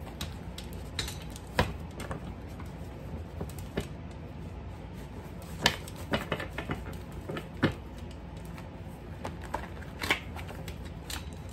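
A stack of paper index cards being shuffled by hand: irregular riffling with short, sharp taps and clicks, a few louder ones spread through.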